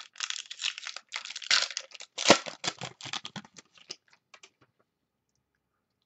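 Foil wrapper of a trading-card pack being crinkled and torn open by hand, with a sharp tear a little over two seconds in. The crackling thins to a few ticks and stops about four and a half seconds in.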